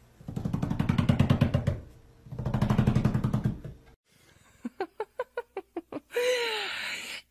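A domestic cat's low, rattling vocalization, given twice and each over a second long. Then a golden retriever gives a quick run of short yips and a longer whine that rises and falls.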